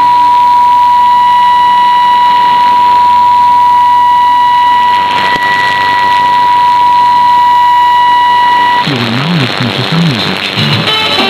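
A steady test tone from a shortwave test transmission, heard through a receiver with a constant hiss of static behind it. The tone cuts off suddenly about nine seconds in, and music comes in over the same static.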